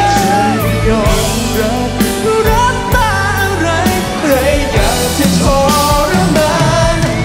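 A man singing a melody over a loud full-band backing with steady bass.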